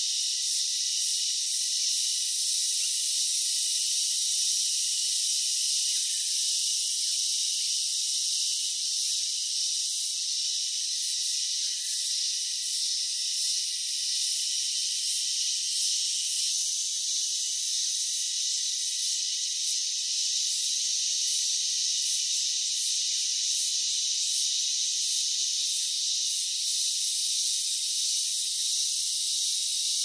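Steady, high-pitched insect chorus: a dense, even hiss with several held tones woven through it and nothing low underneath.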